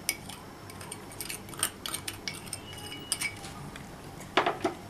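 A kitchen utensil clinking and tapping against a bowl in short, irregular knocks, with a quick cluster of taps near the end, as flour is added to beaten egg for a batter.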